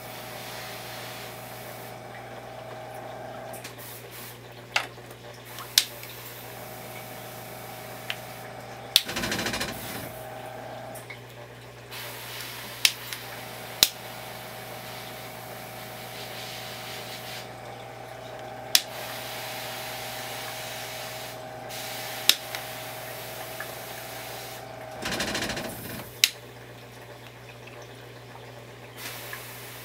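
Reef aquarium equipment running: a steady low hum and a higher steady tone that drops out and comes back a few times, over a faint water hiss. About eight sharp clicks are scattered through it, and two short rushing bursts come about a third of the way in and near the end.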